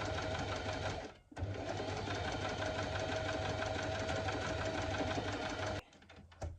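Electric sewing machine running steadily as it stitches. It pauses briefly about a second in, runs on, then stops near the end, with a click or two after.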